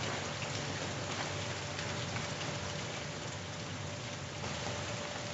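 Steady rain falling, a dense run of small drop impacts, with a faint steady hum underneath.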